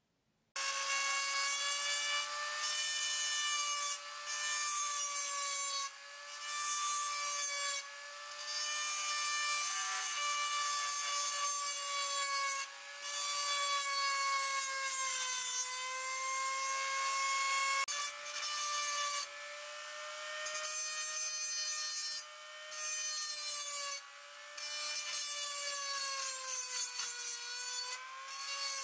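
Handheld rotary tool with a pointed burr bit grinding along the groove of a steel blade: a steady high whine over a grinding hiss, the pitch sagging slightly as the bit bites. It starts about half a second in and dips briefly in loudness every couple of seconds as the bit is eased off and back onto the metal.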